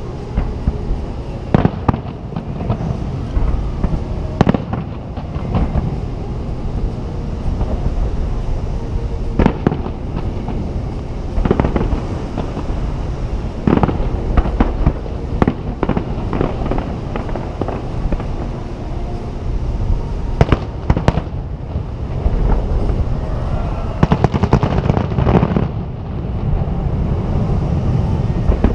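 Japanese aerial fireworks shells bursting in a continuous display: sharp booms at irregular intervals, with a quick run of them near the end, over a steady low rumble.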